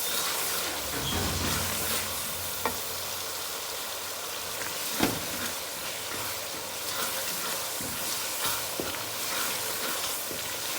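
Onion, tomato and spice masala sizzling in a pot while being stirred, with a few sharp knocks of the stirring utensil against the pot.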